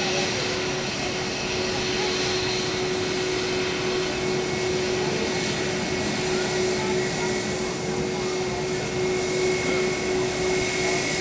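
Airbus A320-232's IAE V2500 turbofan engines running at taxi idle as the airliner taxis past: a steady rushing hiss with a constant hum and a fainter high whine that grows a little stronger near the end.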